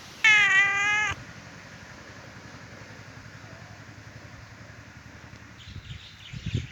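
A domestic cat meows once, a single call lasting just under a second near the start.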